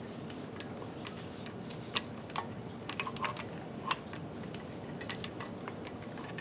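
Light, irregular clicks and taps of Atlas horizontal milling machine parts being handled and slid into place during reassembly, over a steady background hiss.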